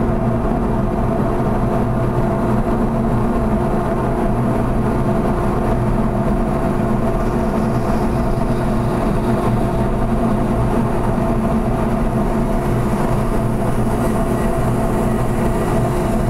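Bandsaw running with a steady hum as its blade cuts a lathe-turned wooden spatula blank.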